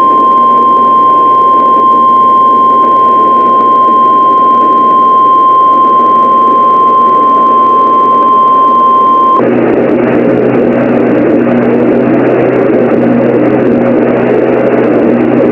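Weather-radio alert tone: a single steady high tone near 1 kHz, like the NOAA Weather Radio 1050 Hz warning alarm, over loud radio static. The tone cuts off suddenly about nine seconds in, and the static carries on alone.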